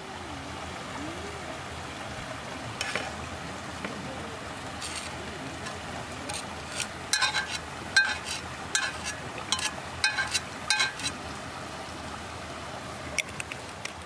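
A run of light, quick clicks and taps of a serving utensil against a pan and plate as stir-fried kimchi is served out, clustered about halfway through with two more near the end. A steady murmur of a nearby stream runs underneath.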